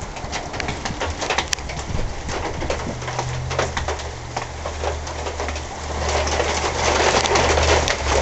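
Heavy thunderstorm rain, a dense patter of drops striking close by, growing heavier about six seconds in. A low steady hum runs beneath it from about three seconds in.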